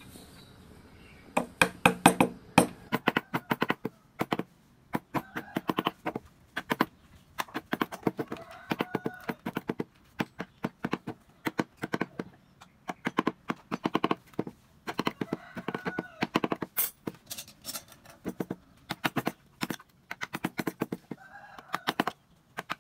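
Wooden mallet tapping a carving chisel into wood, in quick bursts of sharp knocks with short pauses between them.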